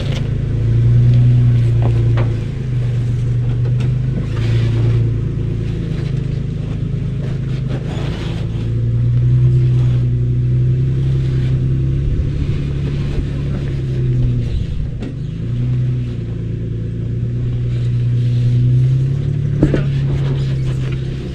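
Off-road 4x4's engine running at low revs while crawling down rock ledges, the drone stepping up and down in pitch as the throttle is fed in and backed off. A few brief knocks come from the vehicle working over the rocks.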